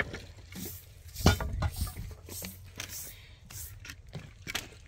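Short straw broom sweeping dry dirt ground in a run of brisk strokes, about two a second. A single louder thump comes about a second in.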